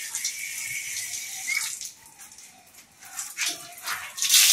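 Water running from a tap onto a cotton towel, stopping about two seconds in, then a few short splashes near the end as the wet towel is squeezed out.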